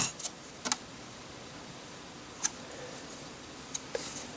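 A few light, sharp clicks and taps of plastic LEGO pieces being handled: three in the first second, one about two and a half seconds in, and two close together near the end.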